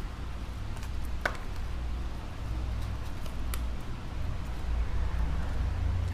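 Two sharp clicks of shattered glass cracking as the iPad Air's broken front glass is pried up, the louder about a second in, over a steady low rumble.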